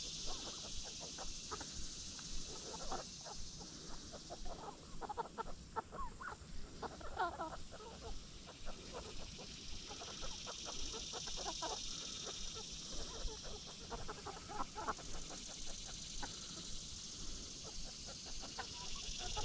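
A flock of chickens clucking as they forage, with many short clucks coming in scattered runs, busiest through the middle.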